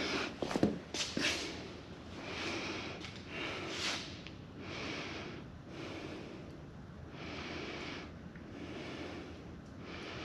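A man breathing hard and close, one breath about every second and a half, with a few knocks in the first second or so.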